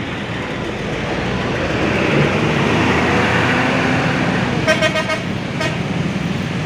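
A large bus passing close by, its engine and road noise swelling, then its horn sounding a quick burst of about four short toots about five seconds in, followed by one more.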